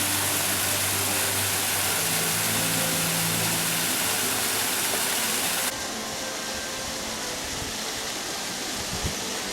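Steady rushing of a waterfall. About halfway through it suddenly turns quieter and less hissy.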